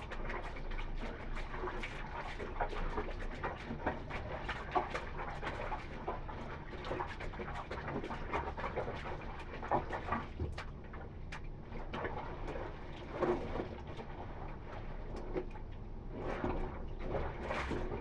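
Bare feet treading laundry in a plastic basin of soapy water: irregular squelching and sloshing with splashes as the clothes are stomped.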